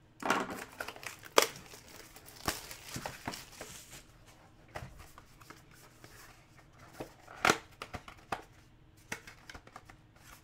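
Plastic wrap crinkling and a cardboard trading-card box being handled and opened by hand: rustling, tearing and scraping, with a few sharp taps and clicks against the table.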